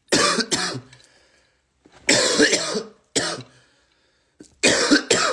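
A man coughing repeatedly, in a string of short bursts with pauses between them; the longest cough comes about two seconds in.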